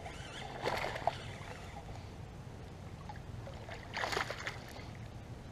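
Hooked largemouth bass splashing at the water's surface as it is reeled in toward the bank: a short splash about a second in and another about four seconds in.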